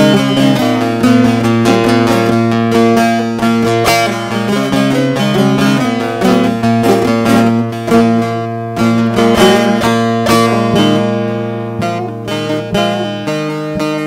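Bağlama (Turkish long-necked saz) playing an instrumental introduction: a plucked, strummed melody over a steady low ringing tone from the open strings.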